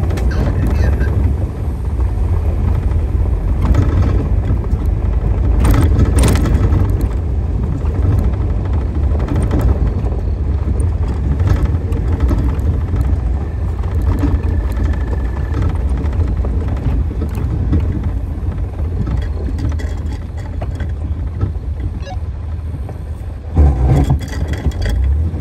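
Inside the cab of a stock Jeep Wrangler TJ driving a rough dirt trail: steady engine and drivetrain rumble with tyre and road noise. Small rattles run throughout, partly from plastic sunglasses hanging from a metal ring, and there are a couple of louder knocks from bumps about six seconds in and near the end.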